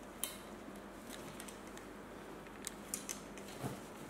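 Faint, scattered clicks and small knocks from handling a plastic airsoft replica of a Barrett M82A1 sniper rifle while its bipod is folded.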